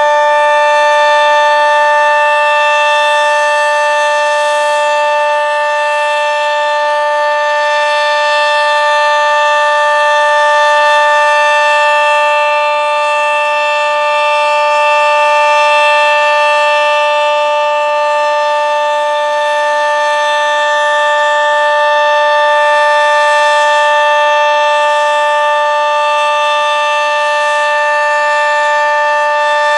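Sentry 40V2T dual-tone outdoor warning siren sounding the full-alert steady signal: a loud, sustained two-note chord that holds its pitch, swelling and fading gently in loudness.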